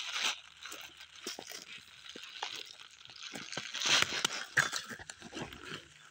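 Rustling and crunching of dry grass, twigs and leaf litter underfoot, with scattered small cracks and a louder scuffle about four seconds in.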